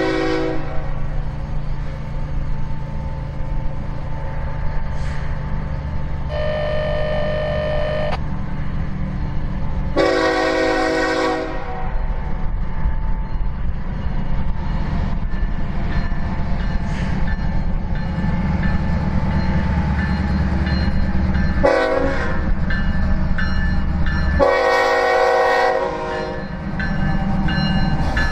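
Freight train led by Canadian Pacific diesel locomotives approaching, engines rumbling steadily, while the lead locomotive's multi-note air horn blows long, long, short, long: the grade-crossing signal. A brief blast ends just at the start, and the locomotives draw level near the end.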